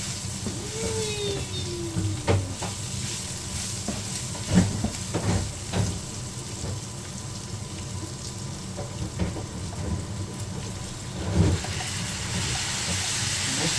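Beef, onion and spices sizzling in a cooking pot as rice is added and stirred in, with a few knocks of the spoon against the pot. A brighter hiss starts near the end.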